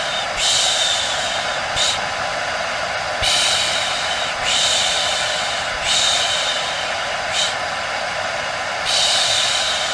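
Hair dryer running steadily, used as white noise: a loud even hiss with a faint whine, its upper hiss swelling and dipping back every second or so.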